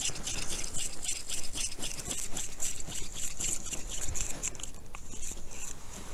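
Small winter ice-fishing rod being handled as its line is wound up and secured: a run of rapid, irregular light clicks and rustling.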